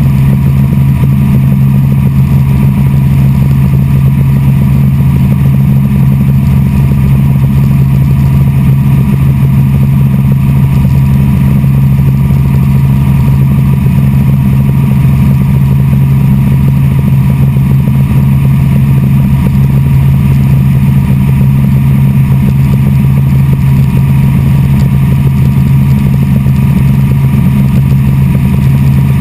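Helicopter engine and main rotor running steadily in flight, heard from inside the cabin: a loud, unchanging low drone.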